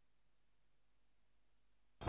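Near silence: the sound track is essentially muted, with only a very faint steady hum.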